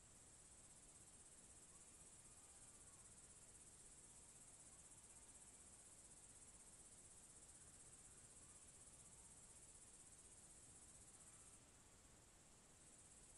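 Faint, steady high-pitched chirring of crickets, dipping briefly near the end.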